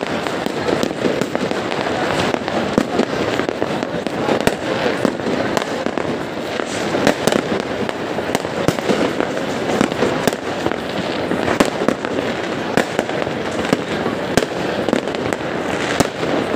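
Many fireworks and firecrackers going off at once: a dense, continuous crackle of bangs, several each second, with an occasional louder report.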